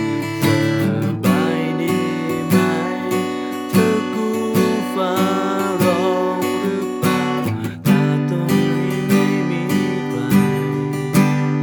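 Music: acoustic guitar strummed in a steady rhythm, with a melody line over it.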